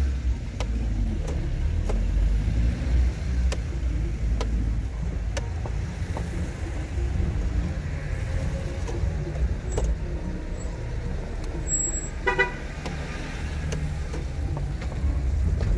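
Car driving, with a steady low rumble of engine and road noise, a few faint clicks, and one short car horn toot about twelve seconds in.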